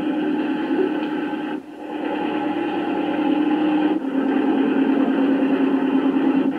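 Handheld VHF marine radio giving out steady hiss and static, briefly dropping out about one and a half seconds in.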